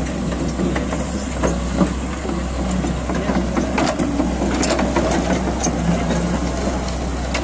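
Crawler excavator's diesel engine running steadily, with scattered short, sharp clicks and knocks over it.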